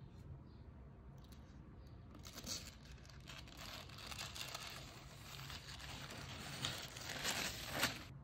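A thin protective paper sheet being peeled off a laptop screen and crumpled in the hands: a papery crinkling and tearing that starts about two seconds in, grows louder and stops abruptly at the end.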